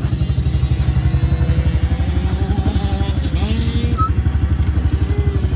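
Small Honda youth dirt bike's engine running at a steady idle, a rapid low putter.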